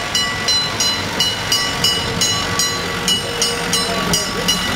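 A railway warning bell ringing steadily at about three strokes a second, over the running noise of the Wismarer Schienenbus railcar as it rolls along the track.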